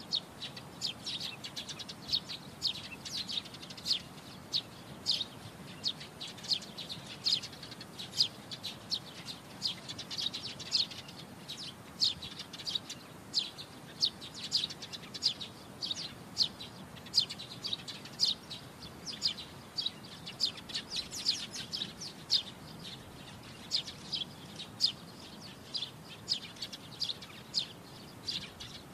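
Small birds singing: an uneven, continuous run of short, high chirps, several a second.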